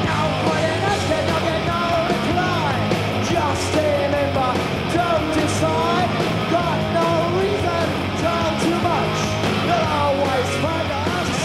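Punk rock band playing live: electric guitars, bass and drums at a steady driving pace, with a voice singing over the top.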